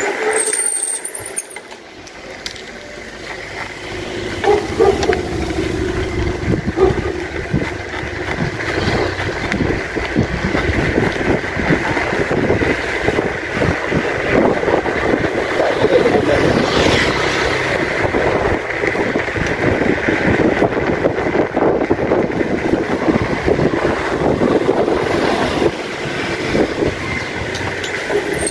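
Bicycle rolling over rough concrete lanes: a steady rattle and road rumble from the bike, dipping briefly about a second in.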